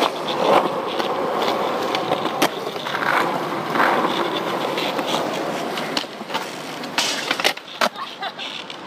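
Skateboard wheels rolling over a concrete skatepark surface, a steady rumble for several seconds. From about seven seconds in come a few sharp clacks of a board hitting the ground as a trick is popped and landed.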